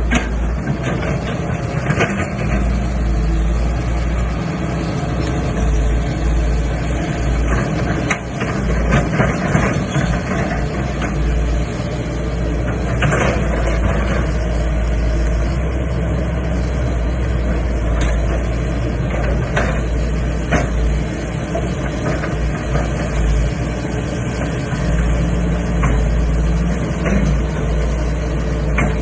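Heavy diesel engine of an excavator running steadily, with scattered sharp clanks and knocks.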